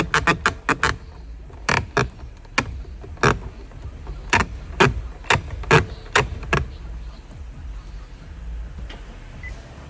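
Acura power side mirror chattering as it tilts in reverse: a fast run of sharp clicks, then single clicks about twice a second that stop about two-thirds of the way through, over a low steady hum. The chatter is the fault the owner is after, the mirror fluttering up and down instead of moving smoothly.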